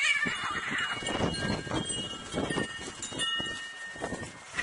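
Two cats fighting on grass: a yowl trailing off in the first second, then the scuffling and thrashing of their bodies against the grass and a shrub. Faint ringing tones run underneath.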